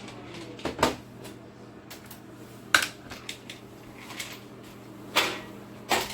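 Four sharp knocks and clatters of hard objects being handled, with smaller clicks between, over a steady low hum.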